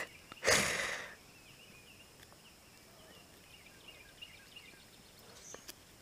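A short rush of noise about half a second in, then faint chirping songbirds in the background.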